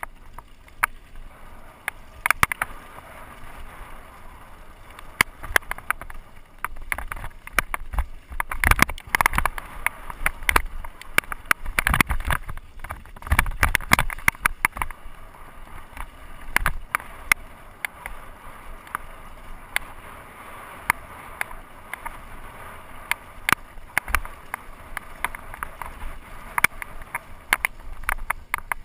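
Downhill mountain bike rolling fast over a rocky dirt and gravel trail: tyres crunching on loose stones, with frequent sharp clatters and knocks from the bike, thickest about eight to fifteen seconds in.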